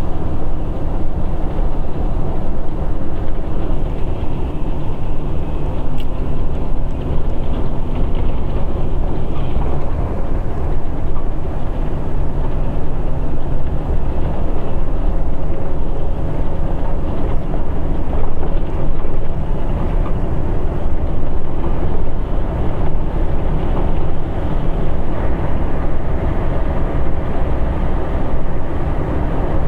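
Vehicle's engine and tyres heard from inside the cab while driving over a rough, rutted desert dirt road: a steady, loud, low rumble.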